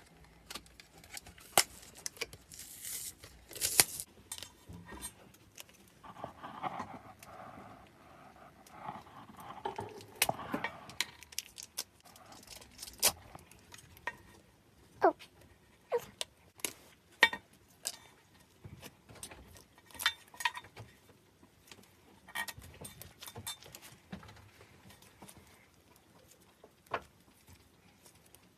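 Crinkling and handling of a plastic slime package and tub in the first several seconds, then scattered sharp clicks and pops as store-bought fluffy slime is squeezed and kneaded by hand.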